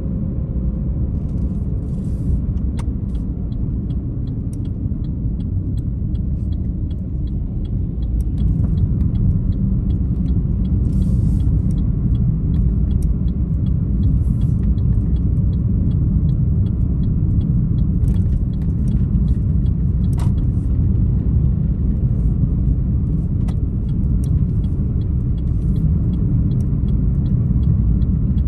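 Car driving, heard from inside the cabin: a steady low rumble of engine and road noise that grows a little louder about eight seconds in. Faint, fast, even ticking runs through it.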